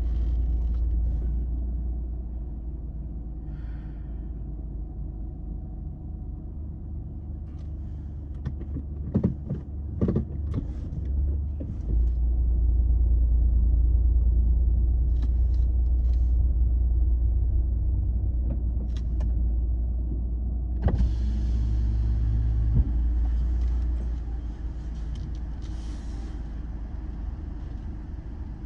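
Car engine running with a low, steady hum heard from inside the cabin as the car idles and then creeps forward, the hum louder from about twelve seconds in. A few light clicks and knocks come through, and about twenty-one seconds in a sharp click is followed by more outside hiss.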